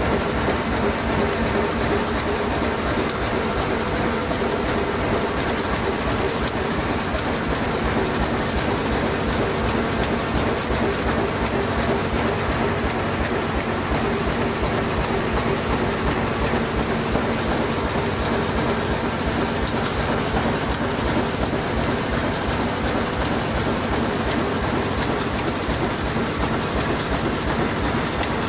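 Corrugated-carton flexo printer-slotter-die-cutter running in production, sheets feeding one after another through its print and die-cutting rollers. It makes a fast, even mechanical clatter over a steady hum.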